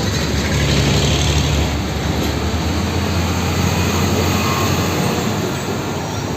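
Loud, steady heavy-vehicle rumble with a low hum, like an engine or a train running, that cuts off suddenly just after the end.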